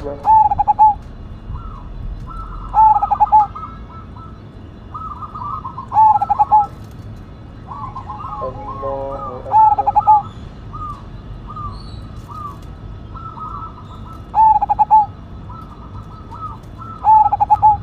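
Zebra dove (perkutut) singing: a loud, rapid stuttering cooing phrase repeated about every three seconds, six times, with fainter cooing notes in between.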